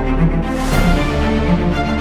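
Background music with steady held tones, a swell of high noise like a cymbal about half a second in.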